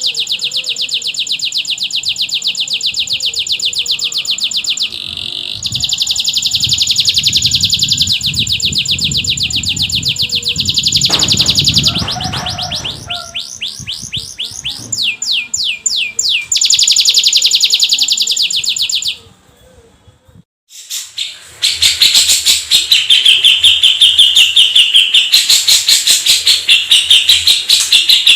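Domestic canary singing long, very fast rolling trills, the note rate changing from phrase to phrase. After a short break a little past two-thirds of the way in, a denser run of rapid high notes follows.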